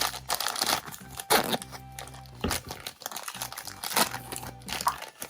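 Crinkling and tearing of toy packaging in a run of short rustling swipes as a blind-bag capsule is unwrapped, over faint background music.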